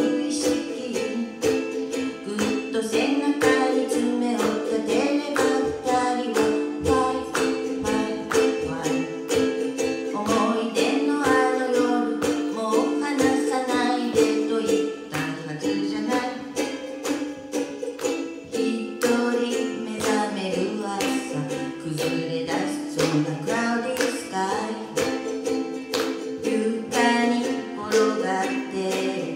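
A woman singing to her own steadily strummed ukulele.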